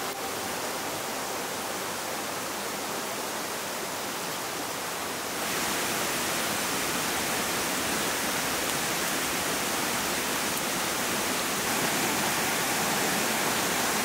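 Mountain stream rushing over stones and a small cascade, a steady hiss of running water. About five seconds in it steps up louder and brighter.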